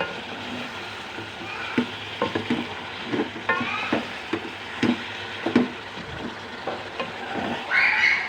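Turmeric chicken sizzling in hot oil in a pan while being stirred. A spatula knocks and scrapes against the pan in irregular clicks over a steady sizzle, with a longer scrape near the end.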